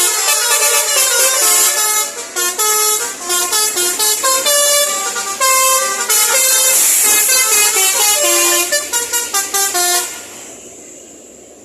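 Indonesian bus's telolet multi-tone horn playing a tune in quick, shifting notes. It cuts off about ten seconds in, leaving quieter vehicle noise.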